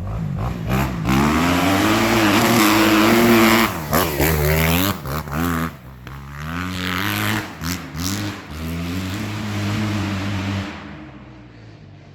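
Kawasaki 250 motocross bike engine revving hard, the pitch rising and falling as the throttle is opened and chopped several times. About two seconds before the end it drops away sharply to a much quieter sound.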